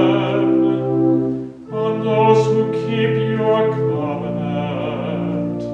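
Church organ holding sustained chords under a voice singing a psalm chant, with a short break between phrases about a second and a half in.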